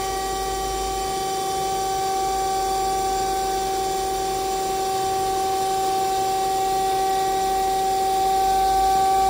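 DoAll C4100A horizontal band saw running with a steady pitched whine as its saw head rises, growing slightly louder near the end.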